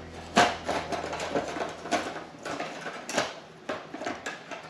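Hard-drive circuit boards clattering against one another and the plastic tub as they are stacked in by hand: a quick, irregular run of light clicks and knocks.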